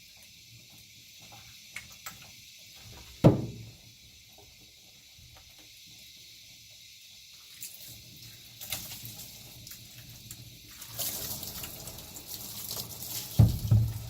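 Water running and splashing in a grooming bathtub while a puppy is washed, louder in the last few seconds, with a sharp knock about three seconds in and a dull thump near the end.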